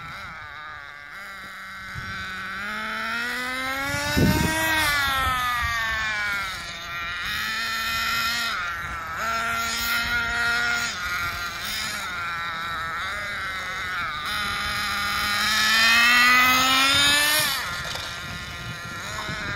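Small two-stroke nitro glow engine of a Thunder Tiger Tomahawk 1/10 on-road RC car, buzzing as it revs up and down with the car's runs: the pitch climbs to a peak about four seconds in, settles, then climbs again and drops off sharply near the end. A short low thump about four seconds in.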